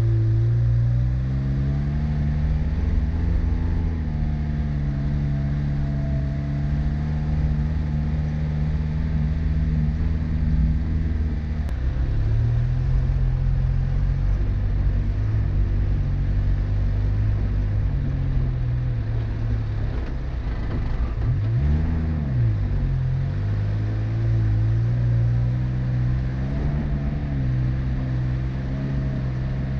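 Car engine running as the vehicle drives, its pitch stepping up and down a few times, with a brief rev up and back down about twenty seconds in.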